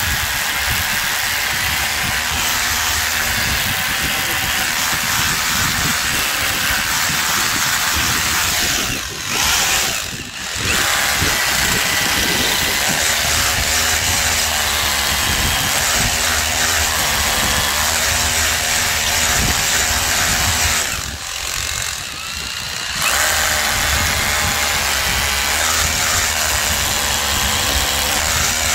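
Einhell Herocco 18V brushless cordless rotary hammer boring into reinforced concrete with a masonry bit, hammering continuously. It stops briefly twice about nine and ten seconds in, and for about two seconds a little past twenty seconds.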